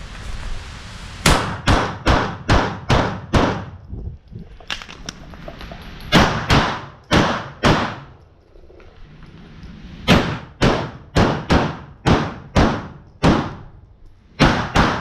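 Pistol shots fired in quick strings about half a second apart, in several groups broken by pauses of a couple of seconds, as a shooter runs a timed action-pistol stage with reloads between strings.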